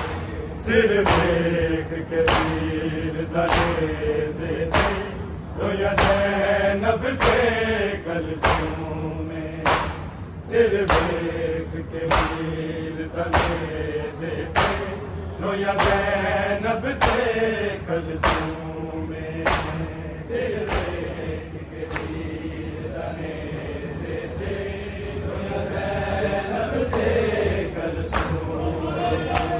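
A group of men chanting a Punjabi noha together in unison, kept in time by a steady beat of hand slaps on the chest (matam), a little more than one slap a second.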